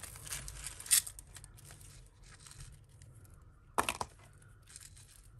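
Costume jewellery and its packaging being handled: rustling and crinkling, with sharp clicks about a second in and again just before four seconds.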